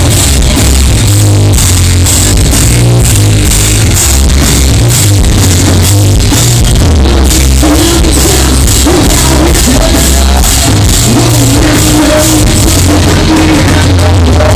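A rock band playing live and loud, with a pounding drum kit, heavy bass and distorted guitars.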